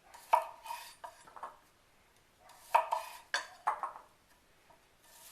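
Several separate clinks and knocks of a knife and bowl as baby red potatoes are cut in half and the halves are dropped into a bowl, each clink ringing briefly.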